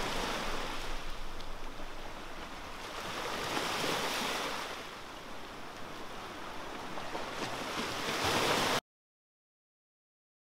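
Sea waves washing onto a beach, swelling about four seconds in and again near the end. The sound cuts off abruptly into total silence about nine seconds in.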